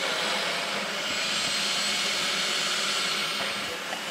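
Food processor motor running in one long pulse, its blade chopping a wet green marinade of herbs, garlic and sour orange juice. The whir eases off slightly near the end.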